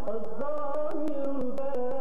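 Music: a stepwise melody over a steady percussion beat of about four strokes a second.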